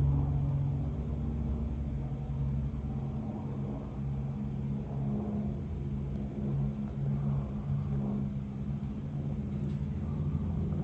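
Aircraft flying overhead: a steady low engine rumble with a droning hum, easing slightly over the first couple of seconds.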